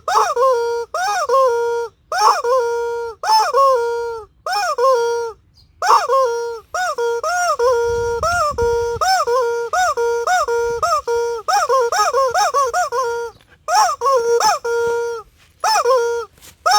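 Rubber squeaky chicken toy squawking over and over as a dog chews and squeezes it: each squeeze gives a short rising honk that holds its pitch, two to three a second, with brief pauses.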